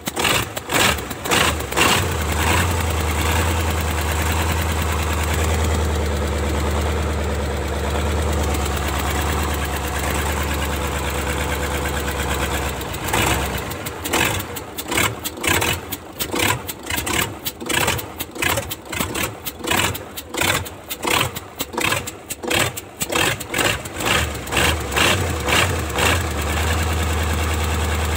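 YaMZ-238 V8 diesel engine being started on fuel fed from a jerrycan after hand-priming. It catches about two seconds in and runs steadily for about ten seconds. It then falters into an uneven pulsing, about two beats a second, for some twelve seconds, and settles back into a steady run near the end.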